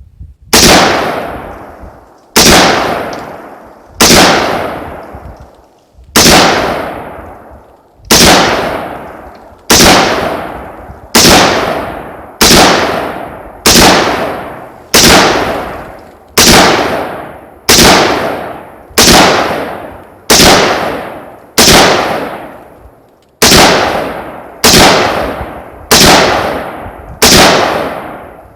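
AR-15 rifle firing .223 55-grain full-metal-jacket handloads in slow, steady semi-automatic fire: about twenty loud single shots, roughly one every 1.3 seconds, each fading away over about a second.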